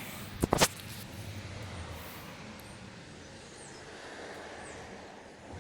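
Steady outdoor background noise with a low rumble of distant road traffic, two sharp clicks about half a second in, and a few faint high bird chirps later on.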